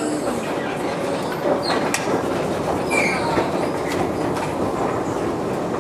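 Escalator running while being ridden: a steady mechanical rumble with a few sharp clicks, one about two seconds in.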